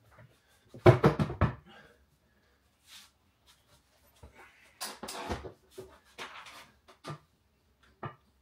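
Knocks, clatters and scrapes of kitchen plinth boards being handled and fitted at floor level under the units, loudest about a second in, with single sharper knocks near the end.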